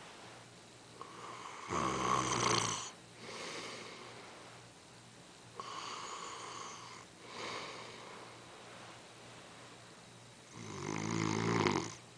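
A man snoring in his sleep: three snores about four to five seconds apart, each followed by a shorter, softer breath. The first and last snores are the loudest.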